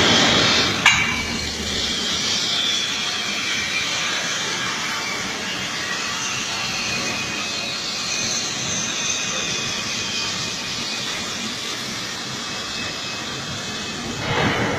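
Cutting torch of a large CNC cutting table hissing steadily as it cuts thick steel plate, with a sharp click about a second in and a louder swell at the start and near the end.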